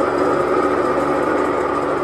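DIOSNA P 1/6 high-shear granulator running with its impeller and chopper turning: a steady mechanical whir with faint steady tones and no change in speed.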